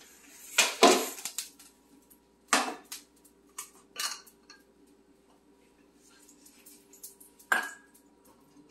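Round metal steaming pans clanking as they are handled and set down on a wooden cutting board: about six separate knocks, the loudest about a second in and near the end.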